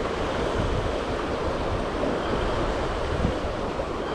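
Wind buffeting the microphone of a body-worn action camera in a steady, fluttering rumble, with surf washing onto the beach behind it.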